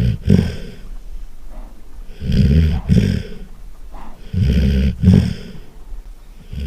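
Golden retriever snoring loudly in its sleep, a snore about every two seconds, each one drawn in two quick pulls.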